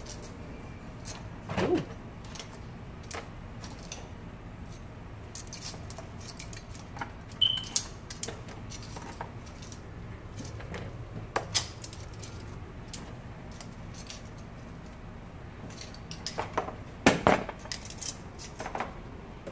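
Metal tongs clicking and clinking against a bowl and a skillet as fried chicken wings are picked up and set into thick barbecue sauce: scattered clicks and knocks, the loudest cluster about 17 seconds in.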